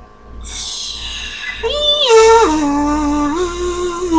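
A hissing whoosh, then a single voice singing a wordless tune in long held notes that slide down and step between pitches.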